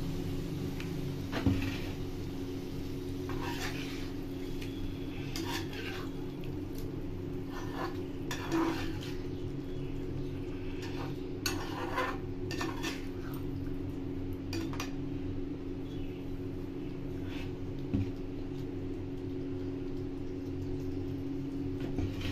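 Metal spatula scraping and knocking against a cooking pan as egg curry gravy is stirred, in scattered strokes, over a steady low hum.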